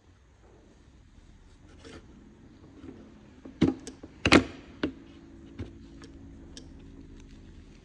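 Sharp plastic clicks and knocks as a Ford Focus window regulator motor assembly is handled on a workbench, three loud ones in quick succession around the middle. After them comes a faint steady hum.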